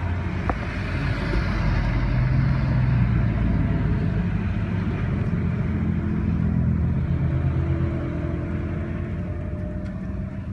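A Dodge Charger driving past, its engine note swelling over the first few seconds and then slowly fading away.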